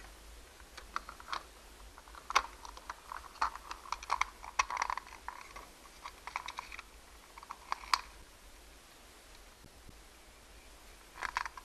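Plastic clicks and rattles as a toy truck's plastic body and chassis are handled and snapped back together, in irregular flurries with a short burst again near the end.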